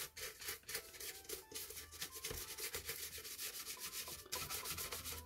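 Toothbrush scrubbing soapy detergent water over the slotted grille of a plastic radio cabinet, in rapid back-and-forth strokes, several a second, with a short pause near the end.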